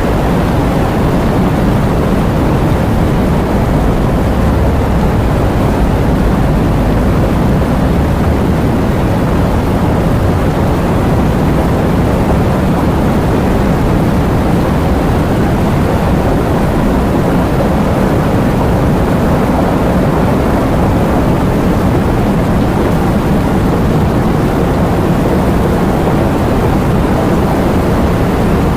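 Steady heavy rain: a dense, even wash of noise with a deep low rumble and little hiss on top, unchanging throughout.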